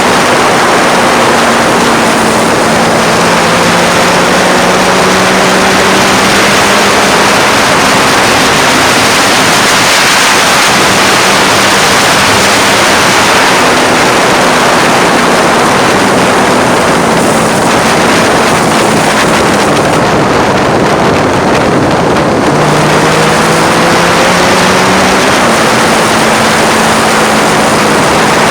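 Heavy wind noise over a phone microphone on a moving motorcycle, with the Triumph Street Triple's 675 cc three-cylinder engine running underneath at a fairly steady pitch. Near the end the engine note drops and then climbs again.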